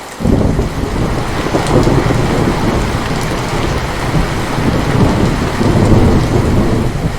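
Heavy rain falling steadily, with a loud rumble of thunder that breaks in suddenly a moment in and keeps rolling.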